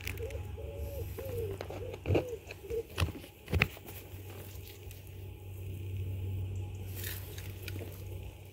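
Leaves brushing against a handheld phone and its handling noise, with a few soft knocks about two to four seconds in, over a steady low hum.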